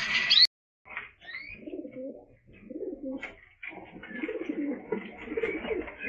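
Domestic pigeons cooing, several low warbling coos overlapping one another after a short drop-out near the start, with a few faint higher chirps among them.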